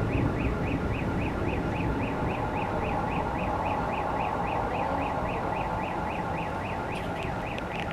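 Car alarm siren sounding a fast repeating up-and-down warble, about four cycles a second, over a steady background rumble.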